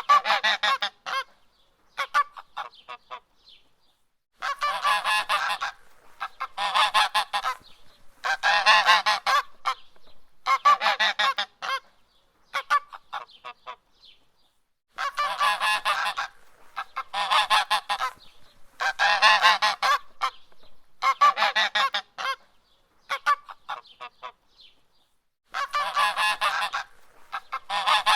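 Goose honking aggressively in repeated bouts of rapid calls, each bout a second or two long with short pauses between: the honking of a goose on the attack.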